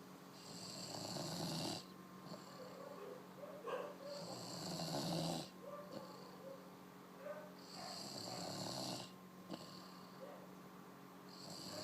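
Snoring: long, noisy breaths about every three and a half to four seconds, with small squeaky whistles between them.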